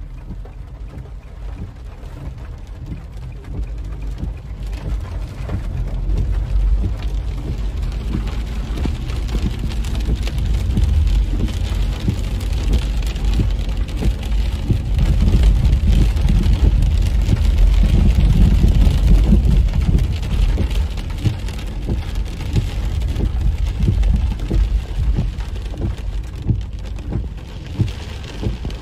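Heavy rain pelting a car's windshield and roof, heard from inside the cabin as a dense patter of drops over a deep rumble. It swells to its loudest midway and eases near the end.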